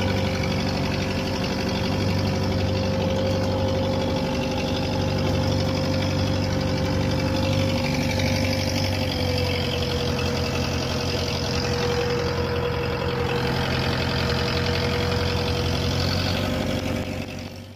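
Fishing boat's engine running steadily while under way, a constant low drone with a steady higher tone over it.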